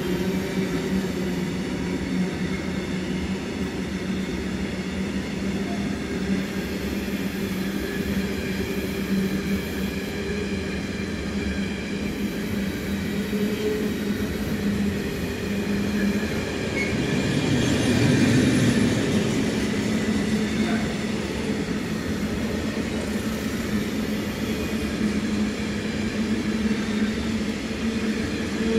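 Freight train of tank wagons rolling past close by: a steady rumble of wheels on rails with a steady low hum. It swells briefly about eighteen seconds in.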